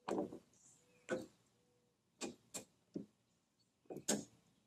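Click-type torque wrench, set to 40 foot-pounds, clicking several times at irregular intervals as it tightens a lawn mower blade bolt. Its click signals that the set torque has been reached.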